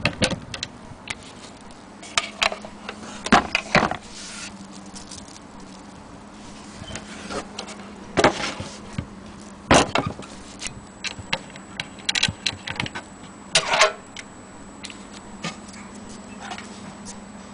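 Knocks, taps and scrapes of an antique wooden sewing-machine case and its cast-iron hand crank being handled and set down: a string of separate sharp knocks, thickest in a few clusters, over a faint steady hum.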